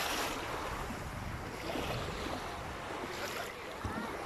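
Sea waves washing in on a beach, the hiss swelling a few times, with wind buffeting the microphone.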